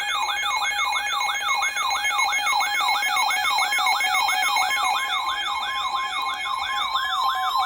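Electronic siren-like alert tone in an emergency-alert broadcast: a rising-and-falling whoop repeating about three times a second over steady tones, with another steady tone joining about five seconds in.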